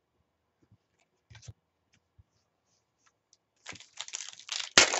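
Wrapper of a trading card pack being torn open: a crinkling, crackling tear starts near the end and peaks in one sharp snap. Before it come a few faint clicks of cards being handled.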